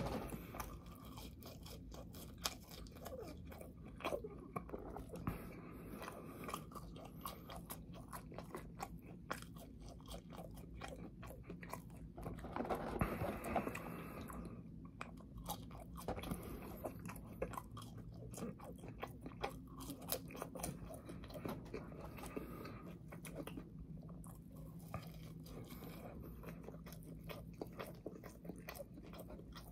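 Close-miked chewing of French fries: crunching and wet mouth clicks, with a louder stretch about halfway through.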